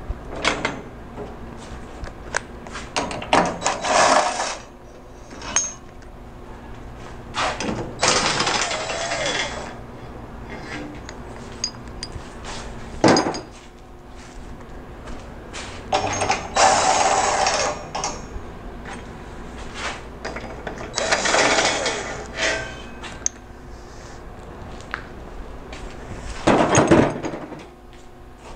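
Cordless power driver running in about six separate bursts of one to two seconds, with short metallic knocks between them.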